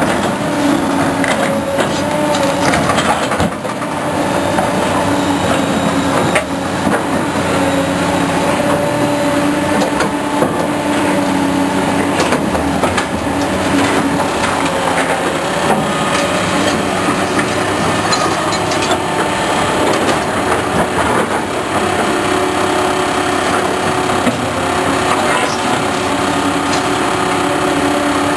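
Heavy machinery running with a steady engine drone and scattered knocks.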